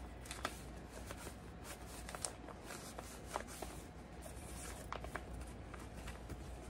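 Faint handling noise: scattered light clicks and soft rustles, over a low steady hum.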